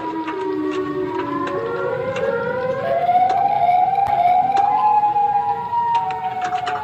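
Civil-defence-style warning sirens sounding as an emergency alert alarm, several at once at different pitches. They wind slowly up in pitch over the first few seconds, then level off and ease down slightly near the end, with scattered sharp clicks over them.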